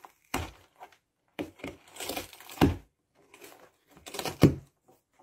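Cardboard box rustling and crinkling in short, irregular bursts as a cat shifts about inside it, with a dull thump a little past the middle and another near the end.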